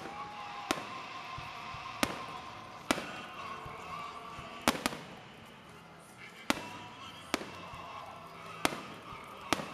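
Aerial firework shells bursting overhead: about nine sharp bangs at irregular intervals, roughly one a second, two of them close together near the middle.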